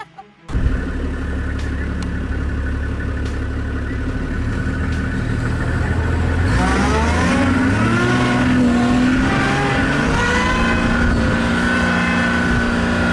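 A motor vehicle's engine starts running suddenly, holds a steady note, then from about six seconds in revs up and down repeatedly.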